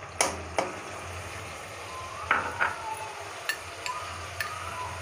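Spices frying in hot oil in a kadai, a steady sizzle, with a spoon clinking and scraping against the pan several times as red chili powder goes in.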